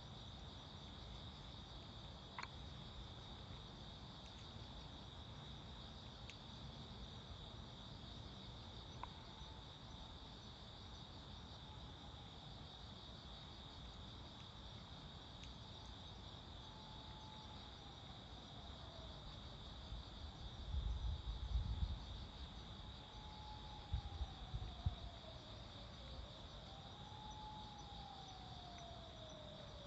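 Steady night chorus of crickets, a continuous high trill. From about ten seconds in, a distant siren wails, sliding down and up in pitch, and low rumbling bumps come about twenty seconds in.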